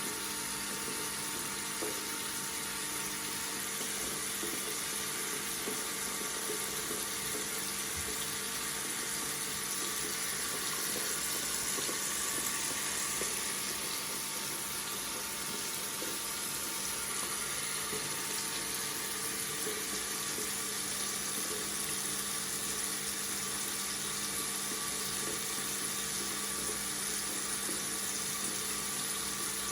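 Water tap running steadily into a sink, an even hiss and splash, with a faint steady hum beneath.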